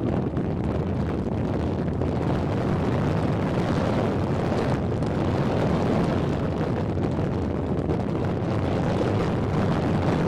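Steady wind buffeting the microphone of a fast-moving camera, with a continuous low rumble underneath.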